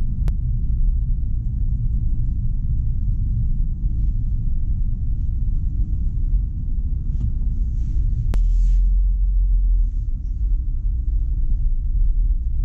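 Car driving along a paved road: a steady low rumble of road and engine noise, swelling a little about eight seconds in, with two brief clicks.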